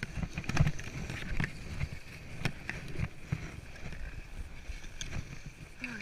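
Skis sliding and scraping over packed snow, picked up by an action camera as an uneven low rumble with scattered knocks and bumps.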